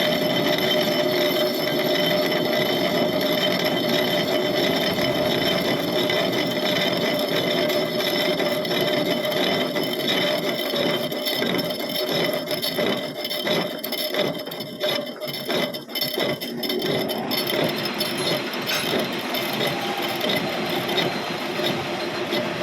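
Metal lathe running with a steady whine while turning the weld-built-up bearing seat of a wheel hub, with irregular scraping and rattling near the middle.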